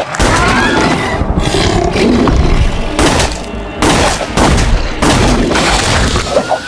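Handgun fired three times about a second apart, each shot sharp and sudden over a dense low rumble of a film sound mix.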